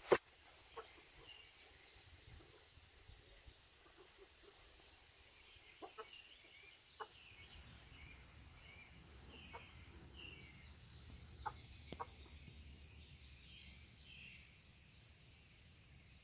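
A sharp click right at the start, then a Barred Plymouth Rock hen close to the microphone making a few quiet, short clucks several seconds apart.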